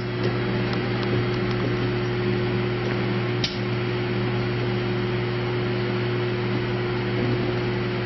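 Microwave oven running with tin foil inside: a steady low electrical hum under the whir of its fan, with a few faint ticks and one sharper snap about three and a half seconds in, typical of the foil arcing.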